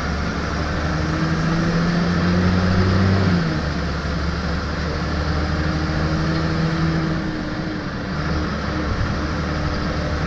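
Interior sound of an Optare Vecta single-deck bus under way: its diesel engine pulls with the note rising for the first few seconds, then drops at a gear change about three and a half seconds in, over steady road and cabin noise. The engine eases off briefly near the end before pulling again.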